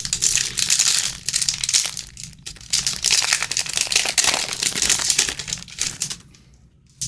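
Plastic trading-card pack wrapper crinkling and crackling as it is handled and torn open, dying away about six seconds in.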